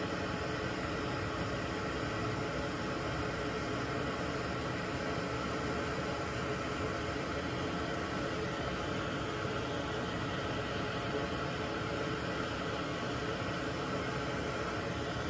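Steady hiss and hum of running bench equipment, even in level with no clicks or changes.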